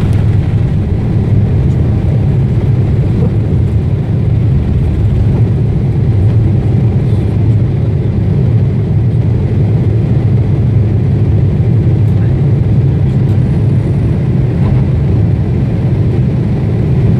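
Boeing 747-8I's turbofan engines at takeoff thrust, heard inside the cabin as a loud, steady low rumble while the jet lifts off and climbs out.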